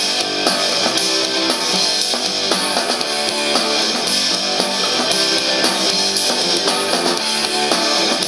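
Rock music with guitar and drums and a steady beat, played from a phone over Bluetooth through a homemade speaker box: a Rockler wireless speaker kit fitted in a plastic ammo-style utility box.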